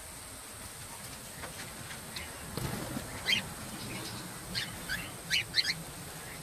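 Cockatiels giving a run of short chirping calls, several in quick succession from about halfway through and the loudest near the end, over a steady hiss.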